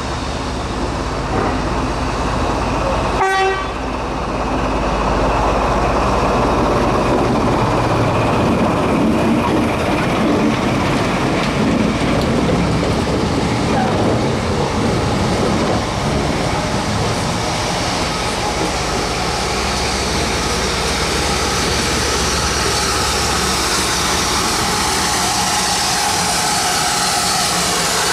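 Great Western 56XX tank engine No. 5619 running into the station with its coaches, a steady rumble of locomotive and wheels on rail. A short whistle toot sounds about three seconds in.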